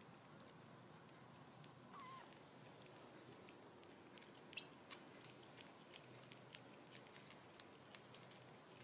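Newborn kittens suckling at their mother cat, faint soft wet clicks of nursing that come more often in the second half. One brief faint squeak about two seconds in.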